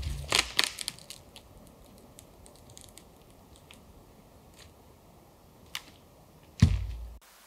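A heavy wooden pole thuds onto the forest floor, followed by crunching footsteps over dry twigs and pine litter. Near the end a thin dead tree, pushed over, hits the ground with a second heavy thud.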